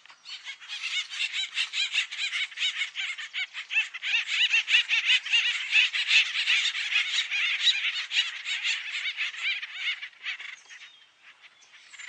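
A group of acorn woodpeckers calling together with their rapid, repeated waka-waka call, a dense chatter of many quick overlapping notes. It is the call a social group gives as its birds gather and display together. It builds, then thins out and fades about ten seconds in.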